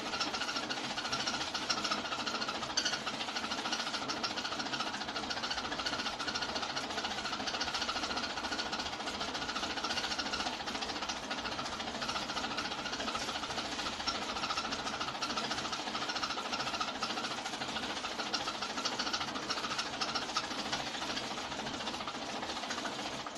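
Hand-cranked 1908 35mm film projector running with a steady, fast mechanical clatter as its intermittent movement pulls the film through the gate.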